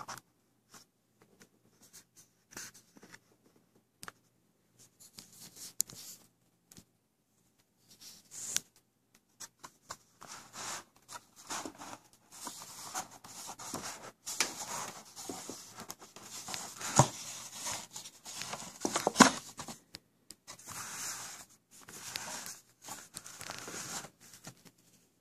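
Cardboard coin box and its paper sleeve handled with cotton gloves: the sleeve scraping and rustling as it is slid off and the box is moved on a wooden table, with a couple of sharp knocks about two-thirds of the way through.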